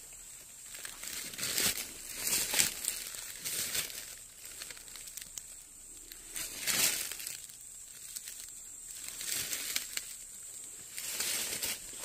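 Dry fallen leaves crunching and rustling in irregular bursts, as they are stepped on and disturbed in the leaf litter.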